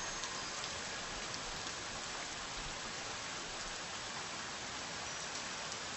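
Steady rain falling, an even hiss of raindrops on surfaces.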